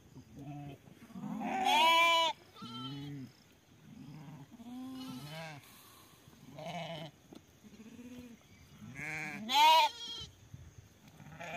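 A flock of sheep and goats bleating, several animals calling one after another and sometimes overlapping. The two loudest are long quavering bleats, about two seconds in and again near the end.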